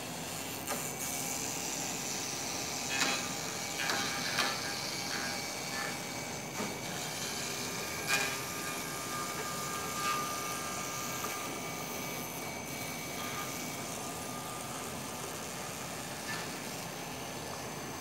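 CNC machining centre's HSD angle-head aggregate milling a lock mortise into the edge of a wooden door: a steady machine noise with a few sharp knocks, around three to four seconds in and again around eight seconds in.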